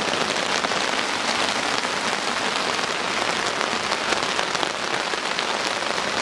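Torrential rain falling steadily, a dense hiss of countless close drop hits with no let-up.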